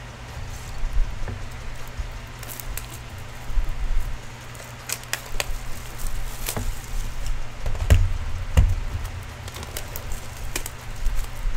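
Plastic shrink-wrap and a cardboard hockey card box being torn open and handled: irregular sharp crinkles and crackles, with two dull thumps about eight seconds in.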